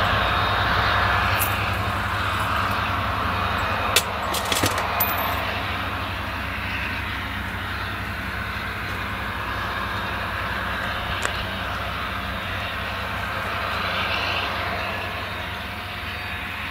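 Claas Jaguar forage harvester working at full throttle with its direct-cut header, engine and chopper running as a steady drone together with the tractor hauling the trailer alongside, fading gradually as they move away. A few sharp clicks about four to five seconds in.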